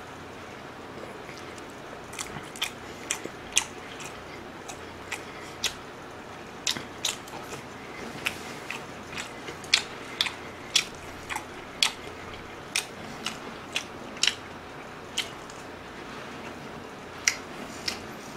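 A man chewing mouthfuls of marinated pork close to the microphone: irregular sharp mouth clicks and smacks, about one or two a second.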